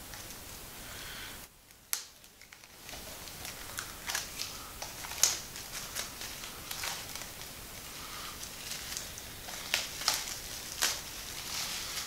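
Clear plastic shrink wrap crinkling and crackling in irregular bursts as it is peeled off a Blu-ray case, after a brief near-quiet moment about a second and a half in.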